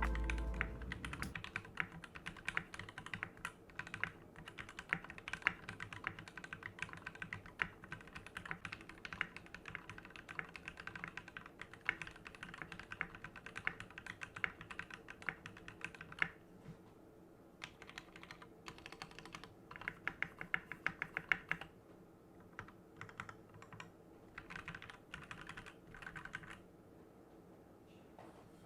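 Typing on a Keychron Q5 mechanical keyboard with pre-lubed Gateron G Pro Red linear switches, case foam and PBT keycaps. Continuous fast typing for about the first half, then shorter bursts of keystrokes with pauses between.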